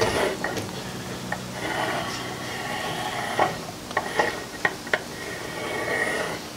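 Pencil compass drawing a circle on a mahogany board: a steady dry scratching of the pencil point on the wood, with a few small clicks of the compass between about three and five seconds in.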